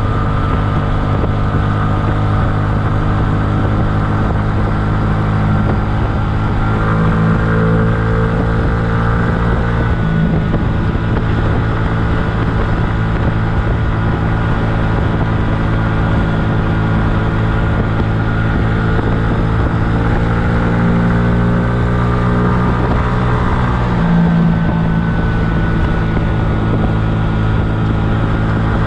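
Kymco People scooter engine running under way, its note rising twice with throttle and dropping back, once about ten seconds in and again near the end.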